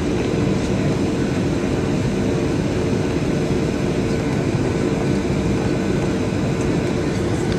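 Cabin noise of a Boeing 737-800 on final approach: the steady roar of its CFM56 turbofan engines and rushing airflow heard from inside the cabin, with a steady droning tone running through it.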